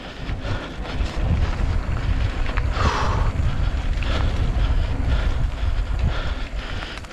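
Wind buffeting the microphone over the rumble and rattle of a mountain bike riding over a rough dirt trail, louder from about a second in. A brief higher-pitched sound cuts in just under three seconds in.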